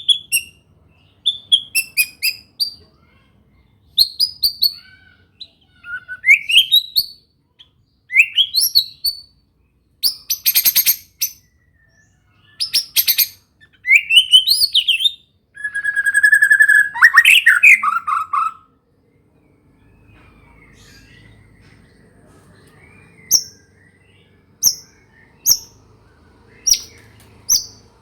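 White-rumped shama singing a song filled with learned canary notes: short phrases of rising whistles and fast canary-like trills about every two seconds. Later, after a pause, single sharp high notes come about once a second over a faint low hum.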